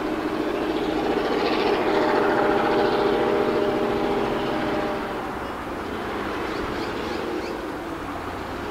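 Diesel locomotive 4903 approaching in the distance with a train of carriages, its engine giving a steady droning note that drops off about five seconds in.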